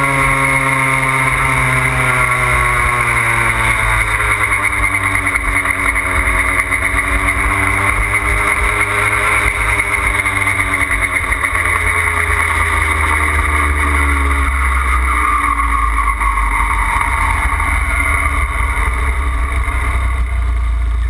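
Puch Maxi moped's single-cylinder two-stroke engine running at cruising speed, its pitch wavering and then dropping about two-thirds of the way through as the moped slows. Wind rumbles over the microphone.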